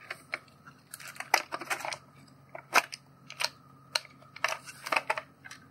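Plastic housing of a Shark V2945Z cordless vacuum's floor head clicking and snapping as its two case halves are pried apart: a dozen or so sharp clicks at uneven intervals.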